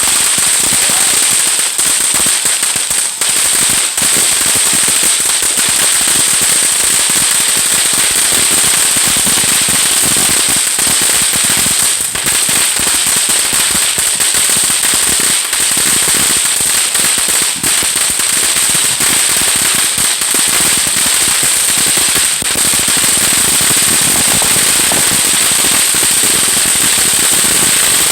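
Freedom Fireworks Retro ground fountain burning: a loud, steady hiss of spraying sparks, with many small crackles throughout.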